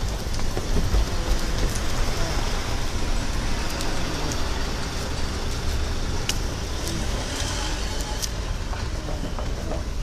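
Steady street traffic noise with a continuous low rumble and a few short clicks.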